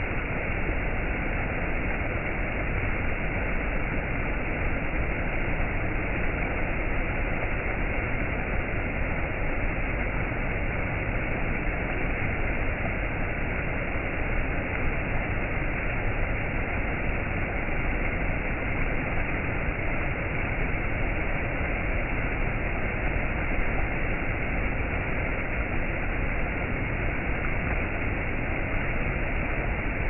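Shallow rocky stream rushing over small cascades: a steady, unbroken rush of water.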